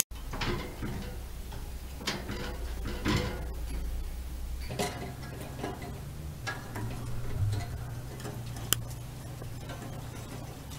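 Irregular clicks and short rattles of a wire cage and wire exercise wheel as a pet rat clambers about on them, over a low steady hum.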